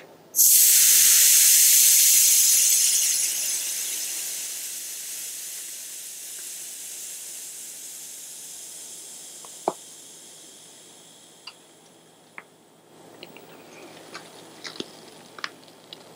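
Air hissing out of a bicycle inner tube through its valve, held open with the tip of a voltage-tester screwdriver: the hiss starts suddenly and loud, then slowly dies away as the tyre deflates. A few faint clicks and handling noises near the end.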